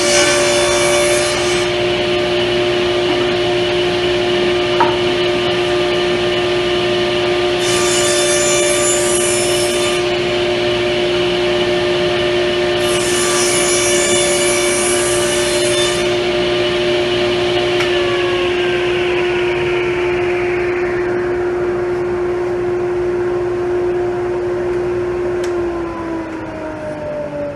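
Power saw running steadily while trimming the edge of a glued-up plywood panel square, with three stretches of a harsher, higher hiss as the blade cuts. Near the end it is switched off and winds down, its pitch falling.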